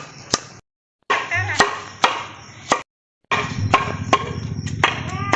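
Axe blows striking a tree trunk: about six sharp chops at uneven intervals, with voices in the background. The sound drops out completely twice, briefly, at edits.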